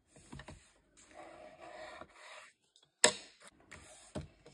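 A hand rubbing and smoothing glued cardstock flat against the paper beneath, a soft papery scraping, with one sharp knock about three seconds in and a few lighter taps after it.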